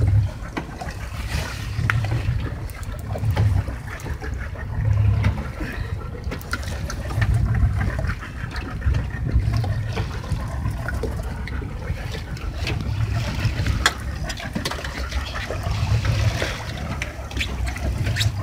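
Sea water sloshing and splashing against the hull of a small fishing boat, with uneven low rumbles every second or two.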